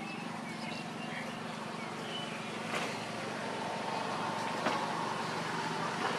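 Steady background noise with a low hum under it, like an engine running nearby, and a couple of faint clicks.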